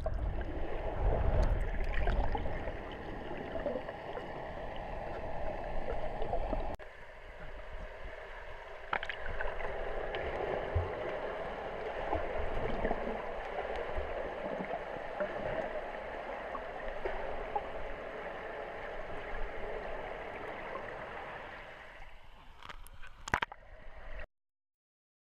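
Muffled rushing and gurgling of pool water heard underwater, with air bubbles from a swimmer breathing out. The sound changes abruptly about seven seconds in, and it cuts off just before the end.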